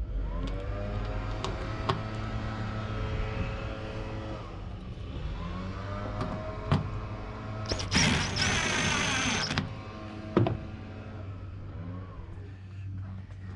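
DeWalt cordless impact driver driving a mounting bolt for a truck tailgate spoiler, run in three spurts, its motor whine rising as each one starts. The third spurt, about eight seconds in, is louder and harsher as the impact mechanism hammers.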